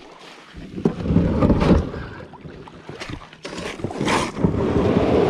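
Plastic kayak hull scraping and knocking on wet lakeshore gravel and sloshing in the shallows as it is shoved off into the water. It comes in two rough bouts, one about a second in and another after about three and a half seconds.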